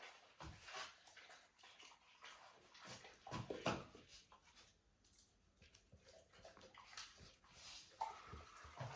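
Faint chewing and mouth smacks of a chocolate Labrador eating apple pieces: a few short, quiet clicks and smacks, the clearest a few seconds in and again near the end.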